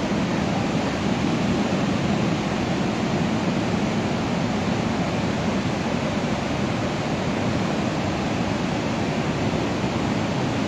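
Steady rush of a river in flood: an even, unbroken wash of water noise.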